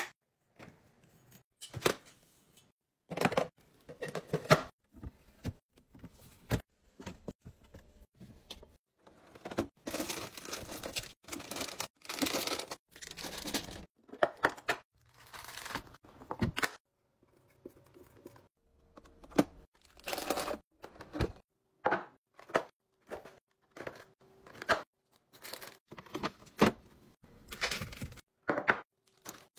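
Plastic packaging and food containers being handled: crinkling and rustling of plastic wrappers, with sharp clicks and knocks as plastic containers, lids and packs are set down and snapped shut. A longer run of crinkling comes about ten seconds in.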